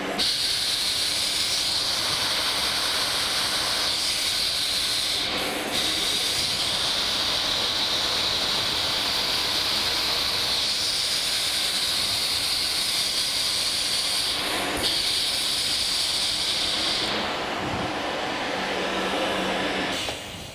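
Tegras Multipro duct-cleaning robot running on compressed air, its pneumatic motor spinning the rotary brush inside a steel duct: a loud, steady hiss. It dips briefly twice and cuts off near the end.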